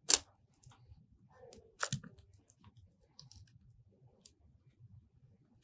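A plastic spudger working along the edge of an iPhone XS Max screen to pry it from the frame: a sharp click, another about two seconds in, and faint scraping and ticks between.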